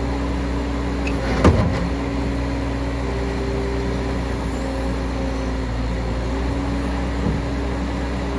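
Terex TSR-60 skid steer's engine running steadily, with a single clunk about a second and a half in.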